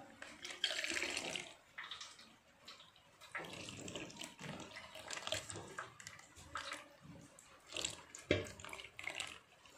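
Milk poured in a thin stream from a plastic pouch into a conch shell, splashing and trickling into the water around it.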